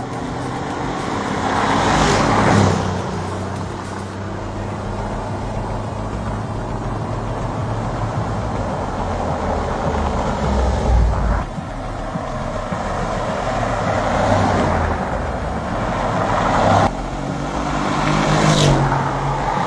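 Boxy Mercedes G-Class SUVs driving by on a paved road, with engine noise and tyre hiss swelling and fading as they pass close several times. The sound drops off suddenly twice where the footage is cut.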